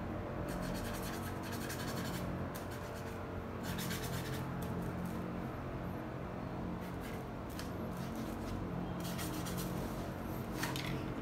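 Paintbrush strokes scratching and rubbing on a canvas board in short bursts, over a steady low hum.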